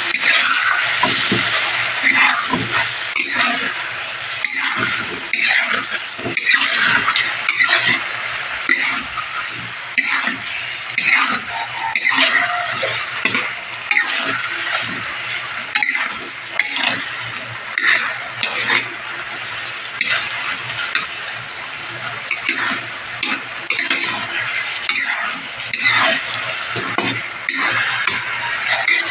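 Hard-boiled eggs, onion and tomato frying in a metal pan with a steady sizzle, while a utensil stirs and scrapes them against the pan in irregular strokes.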